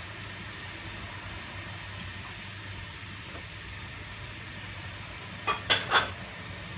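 Steady hiss of a gas stove burner under a pan of water heating up, not yet at the boil. Three quick knocks come close together about five and a half seconds in.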